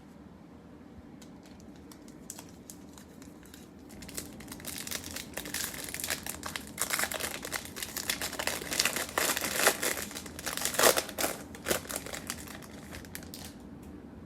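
Foil wrapper of a Topps Chrome trading-card pack being torn open and crumpled: a few light clicks, then several seconds of dense crinkling, loudest past the middle.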